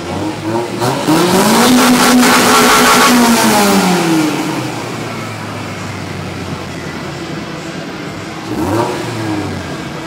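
Toyota MR2 engine revved: it climbs about a second in, holds high for a couple of seconds and drops back to idle, then gives one short blip near the end.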